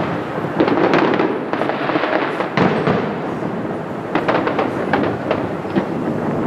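Fireworks display: aerial shells bursting with a dense run of sharp crackling pops, clustered about half a second in and again from about four seconds in.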